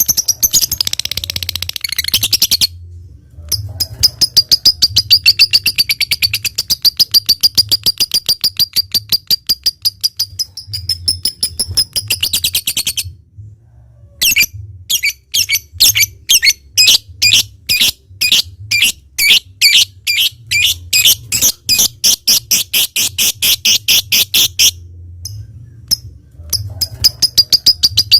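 Lovebird singing long 'ngekek' bouts: a fast, shrill chattering trill of many quick strokes a second, in long runs broken by short pauses.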